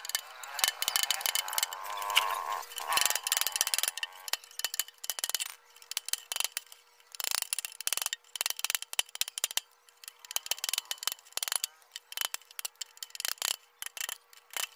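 Repeated sharp metal-on-metal taps in quick, irregular runs: a steel rod being struck to drive the lower knuckle bearing race off a Yamaha Mio scooter's steering stem.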